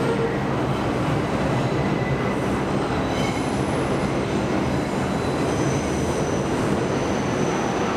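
A New York City Subway 6 train running out along a curving track: a steady, loud rumble of wheels on rail, with high, thin wheel squeal on the curve that comes and goes, clearest in the second half.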